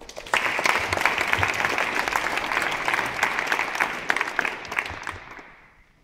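Audience applauding: a burst of clapping that starts right away, holds for about five seconds and fades out near the end.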